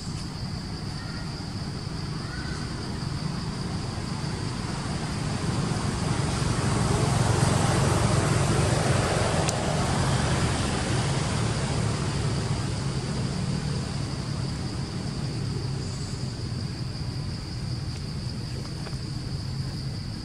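Steady high-pitched drone of insects, with the broad rumble of a passing vehicle that builds to its loudest about halfway through and then slowly fades.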